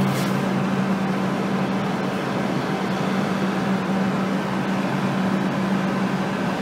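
Loud steady mechanical drone of trains standing at the station platform, a constant low hum with two steady low tones under a broad rushing noise: a ridiculously loud noise.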